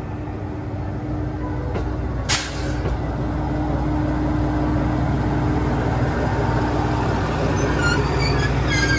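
ET122 diesel railcar rolling slowly into the platform with its engine droning steadily. About two seconds in there is one short, loud burst of air hiss from the brakes, and near the end the brakes start to squeal thinly as it slows to a stop.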